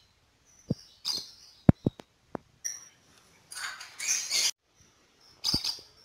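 Lovebirds in a wire cage giving short, harsh chirps and screeches, the longest burst lasting about a second just past the middle. Several sharp knocks fall in between.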